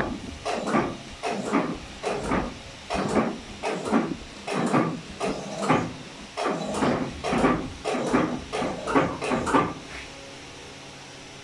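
Cloth rubbing back and forth across the rollers of a Heidelberg MO-S offset press, a quick run of strokes at roughly two a second that stops about ten seconds in.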